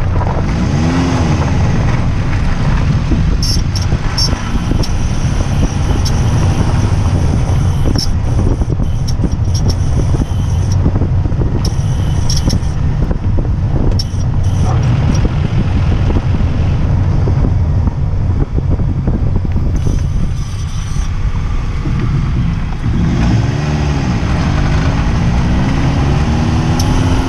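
Fiat 500L's 1.4-litre petrol engine running with a steady low drone and scattered clicks. The revs rise and fall briefly about a second in, then several times near the end.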